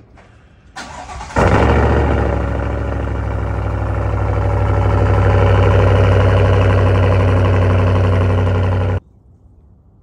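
6.2-litre V8 of a 2023 Chevy Silverado 1500 through a Borla S-type dual-exit quad-tip exhaust: the starter cranks briefly, the engine catches with a loud flare about a second in, then settles into a loud, steady, deep idle that cuts off abruptly near the end.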